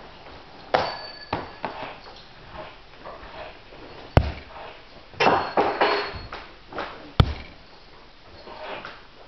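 Thrown steel bo-shuriken striking a target with two sharp hits about three seconds apart, among metallic clinks and clatter with a faint high ringing.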